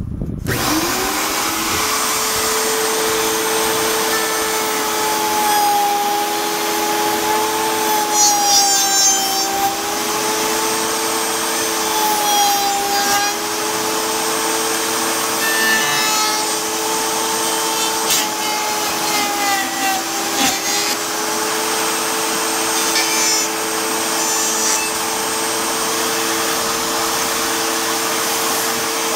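Shop vacuum and table-mounted router switched on together, their motors spinning up at once and then running with a steady whine, one tone wavering slightly. Short scraping and clicking noises come now and then over the motors.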